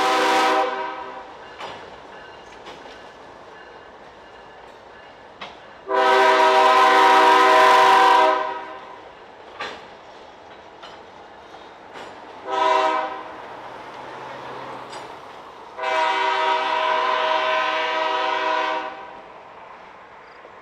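Locomotive air horn blowing a chord: a blast ending just under a second in, then a long blast, a short one and another long one, the end of the long-long-short-long grade crossing signal. Faint clicks can be heard between the blasts.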